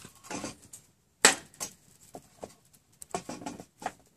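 Short metallic knocks and clinks as a small char tin is taken out of a hobo stove fire and its open top is covered to snuff out the charring cloth. One sharp clack comes a little over a second in, and a quicker run of lighter knocks comes near the end.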